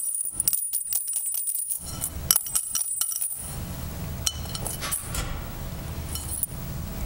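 Metal dog tags clinking and rattling in a clear bowl as they are dropped in and shaken to mix them for the draw. There is dense clinking with a high ringing for about the first three seconds, then a low rumble with a few scattered clinks.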